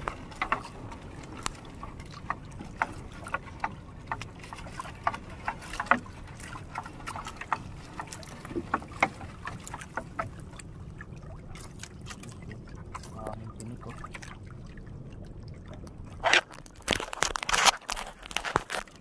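A fishing net being hauled by hand over the side of a small wooden outrigger boat: scattered clicks and knocks of the net against the hull over a steady low wash of water and wind, with a spell of loud rustling and handling noise near the end.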